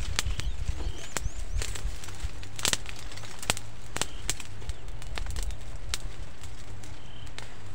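Irregular sharp snaps and clicks of twigs being cut and broken by hand among bushes, a few to a second or so apart, with short bird chirps in the background.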